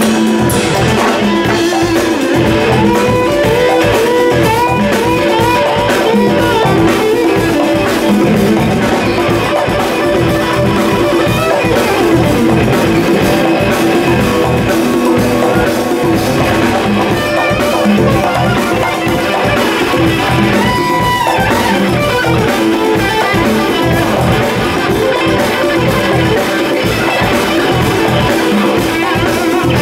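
Latin rock band playing live: a lead electric guitar line with bent notes over drum kit and congas.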